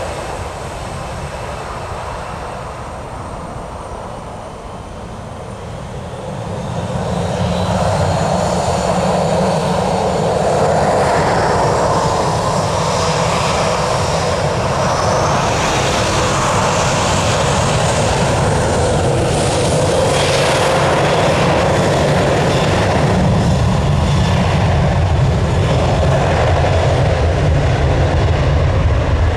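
Southwest Airlines Boeing 737's jet engines spooling up to takeoff thrust: a steady jet roar that swells about seven seconds in, with a rising fan whine, then holds loud.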